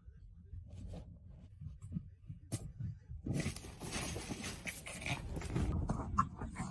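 A pet animal making low, irregular sounds, with a sharp click about two and a half seconds in.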